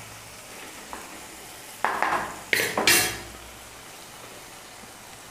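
Stuffed tomatoes being set into hot masala gravy in a frying pan, the gravy sizzling in three short bursts about two to three seconds in.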